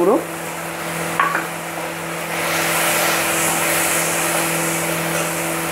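Tomato-onion masala sizzling in a kadai as a spatula stirs in freshly added ground spices, the sizzle and scraping growing louder about two seconds in. A steady low hum runs underneath.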